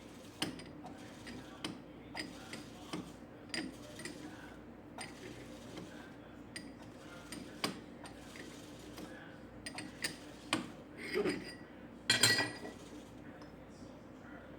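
Metal tools clicking and clinking irregularly while threads are cut by hand on a small metal insert, with a louder clink about twelve seconds in.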